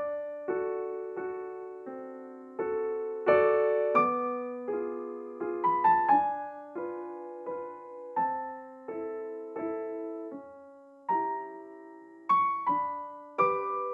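Background piano music: a slow, steady melody of single struck notes, each ringing and fading before the next.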